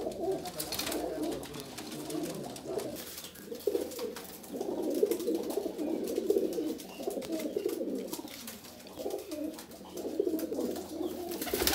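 Domestic pigeons cooing: low, rolling coos that come and go, with short pauses between.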